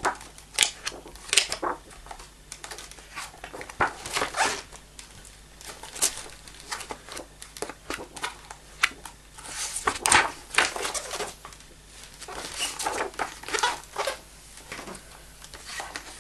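Pages of a large photo book being turned and handled: repeated short paper rustles and crinkles, one of the loudest about ten seconds in.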